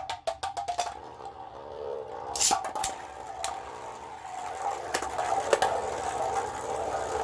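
Two Beyblades, one of them 3D-printed, spinning in a plastic stadium just after launch: a steady whir, a quick rattle of clicks in the first second, then sharp clacks as the tops strike each other several times.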